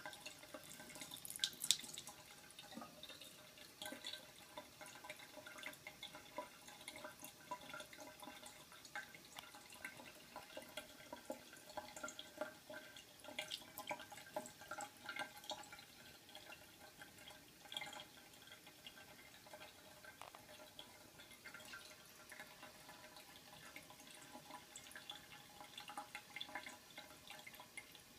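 A thin stream of tap water trickling faintly into a bathroom sink, with small irregular drips and splashes as a cat laps at the stream.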